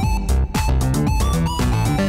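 Upbeat electronic background music with a steady beat and a plucked-style melody.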